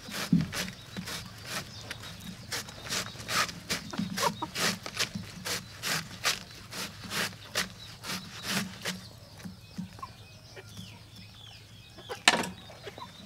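A cleaver chopping banana stem into slices against a wooden log, about three quick chops a second, stopping about nine seconds in, then one more hard chop near the end. Hens cluck softly around it.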